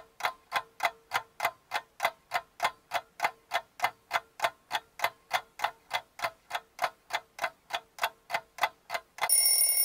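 Countdown-timer sound effect: a clock ticking steadily at about three to four ticks a second, then a bell ringing near the end as the countdown runs out.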